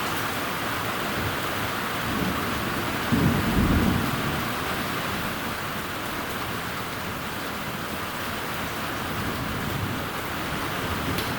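Steady heavy rain with a rumble of thunder that swells about two seconds in, peaks a second or so later and fades away.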